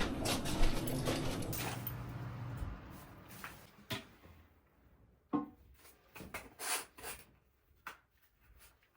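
Toilet water running after a flush, a steady rushing with a low hum, fading out about three seconds in. Then a few scattered light clicks and knocks.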